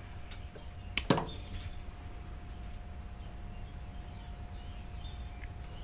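Two sharp clicks close together about a second in, from zip ties being tightened and trimmed with side cutters, over a faint steady hum.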